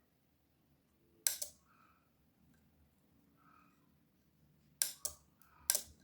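12 V relay on a voltage stabilizer's circuit board clicking as it switches: one click about a second in, then three close together near the end. The clicking shows this relay is working.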